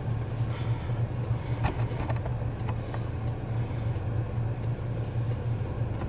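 Steady low hum inside a stationary minivan's cabin, with a few faint clicks about two seconds in.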